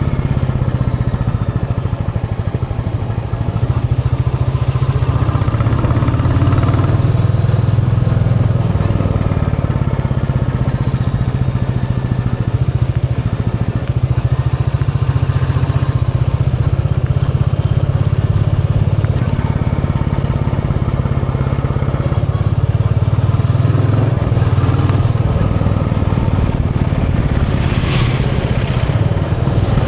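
Royal Enfield Bullet 350's single-cylinder engine running steadily while the motorcycle is ridden, picking up slightly about four seconds in.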